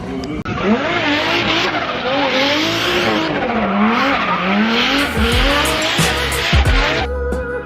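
A car drifting: its engine revs rise and fall repeatedly while the tyres squeal continuously. Music comes in near the end.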